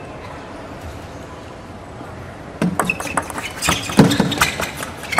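A steady arena murmur, then from about halfway a quick run of sharp clicks as a table tennis ball is struck by bats and bounces on the table.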